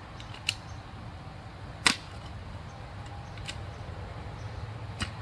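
Manual clamshell post hole digger driven into the soil of a fence post hole, four sharp chunks about a second and a half apart, the second the loudest, over a steady low hum.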